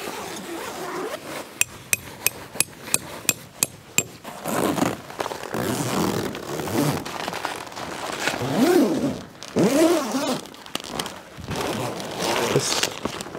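About ten quick, ringing metallic strikes, a hammer driving a metal tent peg. Then louder scraping and handling noises of tent gear.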